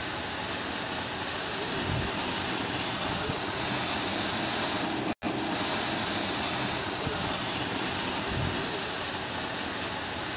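Sri Hari 'Lemon Juice' tin fountain firework burning with a steady hiss of spraying sparks. The sound cuts out for an instant about halfway through.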